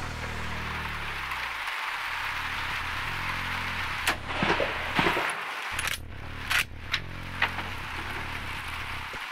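Schmidt-Rubin K11 carbine, a straight-pull rifle in 7.5×55 mm Swiss, being fired and cycled quickly. About four seconds in, a run of sharp cracks and metallic clacks of the straight-pull bolt begins and goes on for about three and a half seconds.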